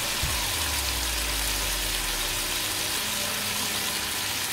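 Chicken strips and chopped garlic frying in hot oil in a pan, with soy and oyster sauce just added: a steady sizzle.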